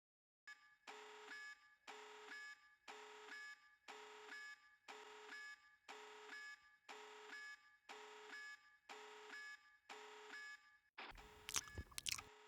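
An electronic alarm beeping in a repeating pattern, about one burst a second, then a clatter of sharp knocks and rattles near the end.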